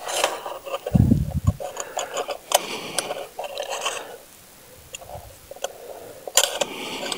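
Irregular scraping and ticking of a thin wire raking dead bees out of a beehive's slotted lower entrance, the wire catching on the metal entrance slide and the wooden landing board.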